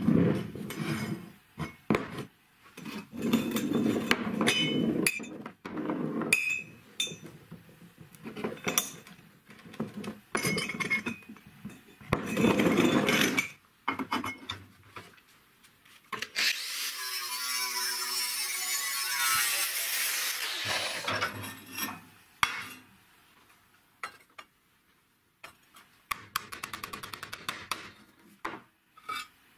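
Steel pipes being handled on a plywood workbench and in a bench vise: repeated knocks, rolling scrapes and clinks of metal. About halfway through, a power tool cuts steadily for some four seconds.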